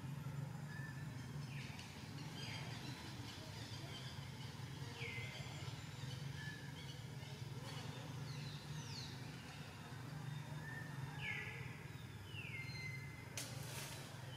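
Outdoor ambience with a steady low hum and a bird call repeated every few seconds, each a short whistle that drops in pitch and then levels off. A brief crackle comes near the end.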